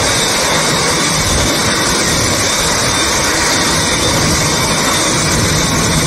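Boeing 787 jet engines running steadily: an even rush of engine noise with a thin, steady high whine on top.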